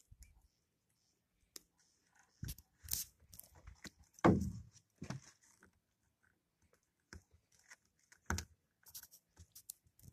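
A wet fishing net being hauled by hand over the side of a boat while a fish is worked free of it: scattered rustling and crackling of the mesh, with a few sharp knocks against the boat. The loudest knock comes about four seconds in, another after about eight seconds.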